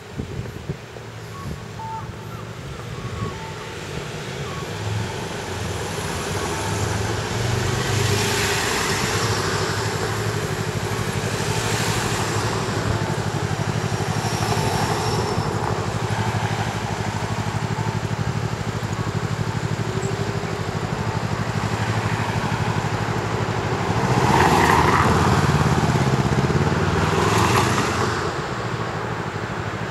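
City street traffic: a steady rumble of cars and trucks driving past that builds over the first several seconds. Several vehicles sweep past one after another, loudest between about 24 and 28 seconds in.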